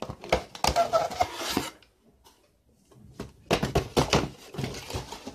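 A cardboard box handled by hand: rubbing, scraping and small knocks of the packaging, in two spells with a short quiet pause between them.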